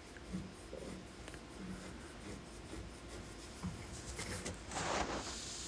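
Faint plastic rubbing and light clicks as a laptop's plastic bottom base cover is lifted away from the chassis, with one louder scrape about five seconds in.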